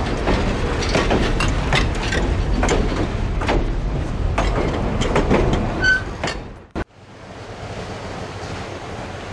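Steel passenger coaches rolling slowly past, their wheels clicking over the rail joints, with a short high wheel squeal near six seconds in. The rolling sound cuts off about six and a half seconds in, leaving a steady, quieter hiss.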